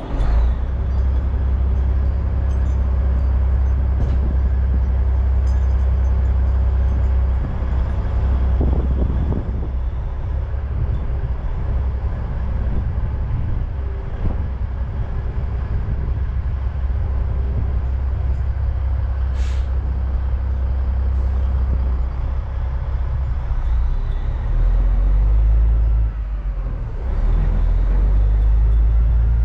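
Dump truck's diesel engine running loudly with a steady low rumble, coming up suddenly at the start and getting deeper for a couple of seconds near the end. A brief high hiss about two-thirds of the way through.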